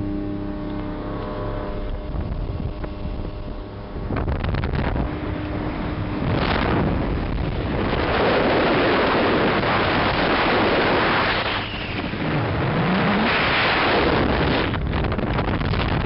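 1979 Volvo Penta 400 outboard running as the speedboat travels at speed. From about four seconds in, loud rushing wind and water along the hull cover the engine note.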